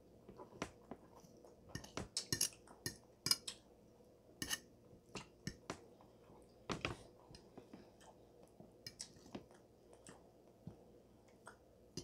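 Close-miked chewing with many short clicks of the mouth, thickest in the first half, and occasional light clinks of a fork against a plate.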